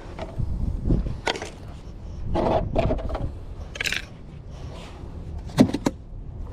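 Scattered scraping and rustling noises and a few sharp clicks over a steady low rumble.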